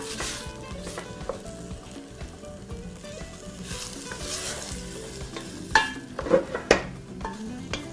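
Chopped onion, carrot and celery sizzling in olive oil in a stainless steel pot while a wooden spoon stirs and scrapes through them: the soffritto frying gently to soften.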